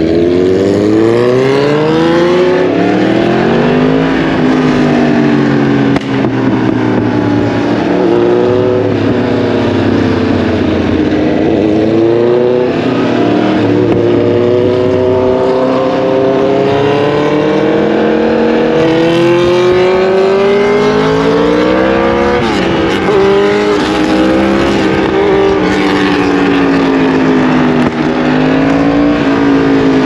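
Yamaha MT-10's crossplane inline-four engine under way, its revs rising and falling again and again as the bike accelerates and shifts through the gears.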